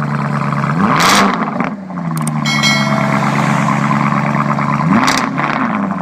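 Car engine idling, revved briefly twice, once about a second in and again near the end, each time rising in pitch and settling back to idle.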